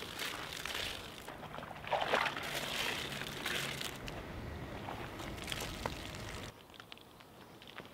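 Wash mitt being plunged and swished in buckets of soapy water during a two-bucket wash, splashing and sloshing, with water pouring off as it is lifted out; the loudest splash comes about two seconds in. About a second and a half before the end the sloshing stops and only faint soft sounds remain.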